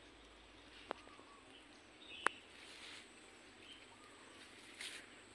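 Faint outdoor background with a few scattered sharp clicks, the loudest a little over two seconds in, and a brief hiss near the end.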